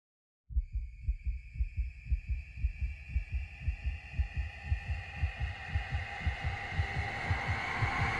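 Horror-intro sound design: a fast, low, heartbeat-like pulse of about five thuds a second, starting about half a second in, under a thin high ringing tone that swells toward the end.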